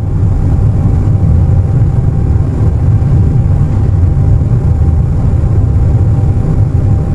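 Airliner cabin noise at cruise: a steady low rumble of engines and airflow, with a faint steady tone above it.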